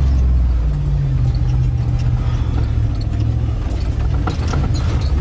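Off-road 4x4's engine running while driving over a rough forest track, heard from inside the cab; the engine note drops about a second in. Loose gear rattles in the cab over the bumps.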